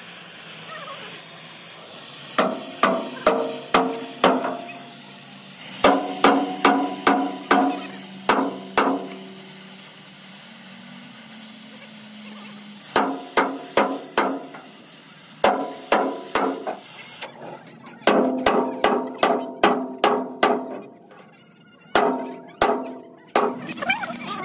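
Sledgehammer blows on the steel plate of a crane boom that a gas torch is heating: runs of five to eight quick strikes, about three a second, each with a metallic ring, separated by pauses. A steady torch hiss runs underneath at the start.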